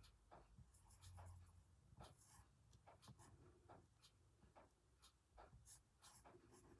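Faint scratching of lines being drawn by hand on paper, with scattered small ticks and rustles.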